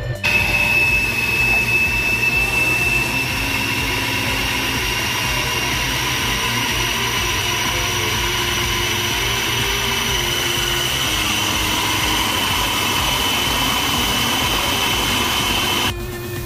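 Electric food processor running at speed, its blade chopping tomatoes and onion. It makes a steady high whine over a hiss, the whine creeping slightly higher in pitch as it runs. It starts abruptly and cuts off suddenly near the end.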